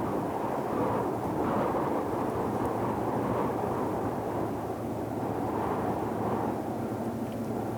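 Deep ocean noise made for sleep: a steady, low, muffled hiss like brown noise, swelling and easing gently every second or two.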